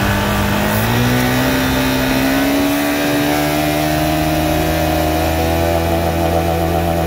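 Honda CRF450L's single-cylinder four-stroke engine running off idle with the throttle slightly open, its revs climbing slowly and steadily. It is fuelled through a freshly fitted JD Jetting Power Surge 6X EFI tuner.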